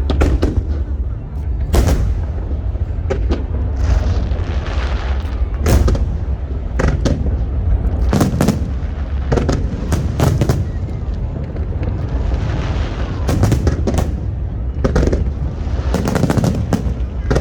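Aerial fireworks shells bursting in quick succession, sharp bangs one or two a second over a continuous low rumble. A hissing crackle comes about four seconds in and again after twelve seconds.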